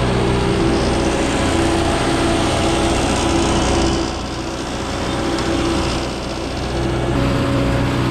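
Truck engine running steadily, heard from inside the cab, easing off a little about four seconds in and again around six seconds.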